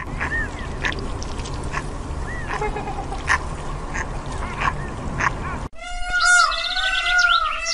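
A group of Humboldt penguins calling, short honking squawks over a steady noisy hubbub. About two-thirds of the way in it cuts to another bird giving a run of loud repeated calls, each note rising and falling in pitch.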